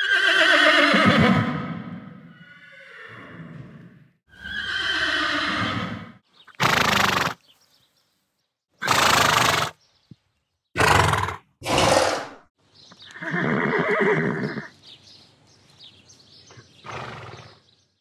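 Horses neighing: a long whinny falling in pitch at the start, another about four seconds in, and a third about thirteen seconds in, with four short noisy blasts between the second and third.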